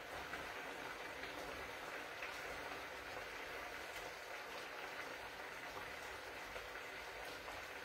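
Risotto simmering in a pan on a gas hob: a faint, steady bubbling hiss.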